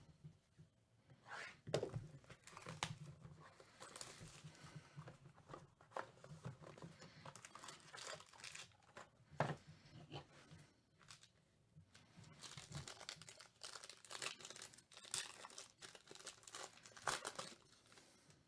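Hands working a cardboard trading-card box and its foil-wrapped card pack: irregular rustling, crinkling and tearing with sharp crackles. Near the end the foil pack is torn open.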